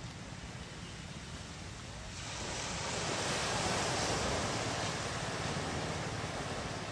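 Small waves washing onto a beach: a steady hiss of surf that swells louder about two seconds in.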